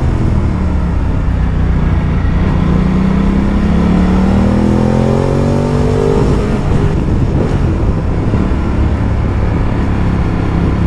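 A Ducati Multistrada's V-twin engine pulls under way, with wind noise rushing past. The engine note rises steadily from about two seconds in as the bike accelerates, then holds.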